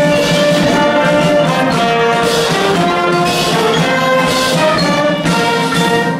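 Brass instruments playing a tune in held, changing notes as music for the dance.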